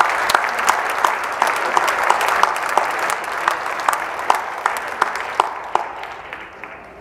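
Audience applauding, many hands clapping together; the applause thins out and fades over the last couple of seconds.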